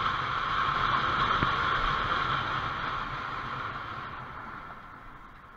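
A motorcycle on the move, heard from its onboard camera: a steady rushing noise of wind and road with a faint low engine hum, slowly fading toward the end.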